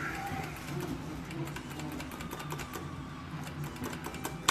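Gaming-hall slot machines between spins: faint, irregular ticking and a few soft electronic tones over a low hum, with a sharper click at the very end.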